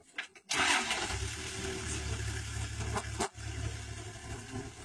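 Safari vehicle's engine starting about half a second in and then running steadily at idle.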